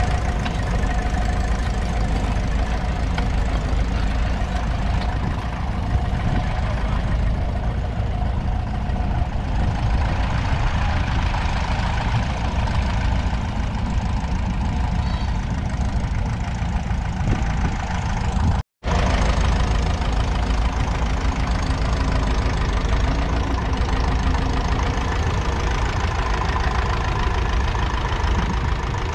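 Ferguson TEF20's 2.1-litre four-cylinder diesel engine running steadily under load as the tractor pulls a two-furrow mounted plough. The sound drops out for a split second about two-thirds of the way through.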